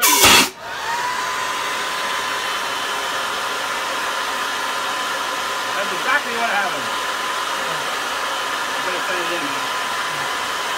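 JetCat P180 model jet turbine in a hot start: a sudden loud burst as flame belches from the exhaust, then the turbine running steadily with a whine over rushing air.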